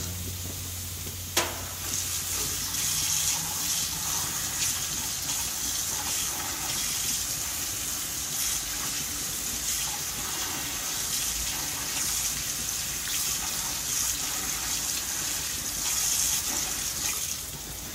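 Steak and lamb chops sizzling on a grill: a steady hiss, with a single sharp click about a second and a half in.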